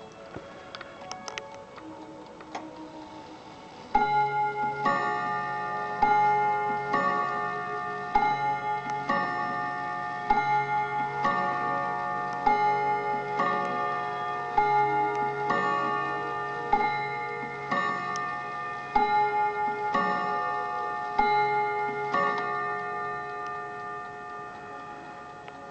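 Antique mantel clock's three-gong chime mechanism: after a few seconds of faint clicking from the movement, the hammers strike the gong rods about once a second for roughly twenty seconds, playing a sequence of different notes that ring on into each other.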